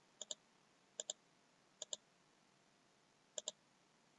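Computer mouse button clicked four times, each click a quick press-and-release pair, spread unevenly over about three seconds.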